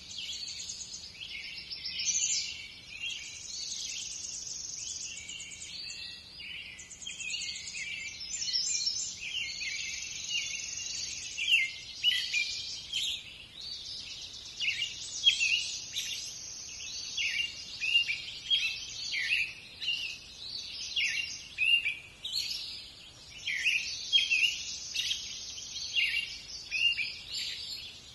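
A dense chorus of small woodland birds chirping and trilling, with many short, sharp high notes that come thicker in the second half, over a steady high hiss.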